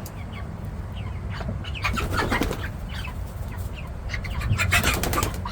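Young Cornish Cross meat chickens flapping their wings, with a run of short scratchy rustles that grows busier toward the end, over a low steady rumble.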